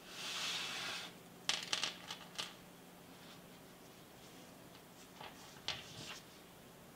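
A gloved hand rustles across a wooden workbench for about a second. Then come two clusters of light clicks and taps as small steel parts, a pipe cutter's cutting wheels and a washer, are set down and slid on the wood.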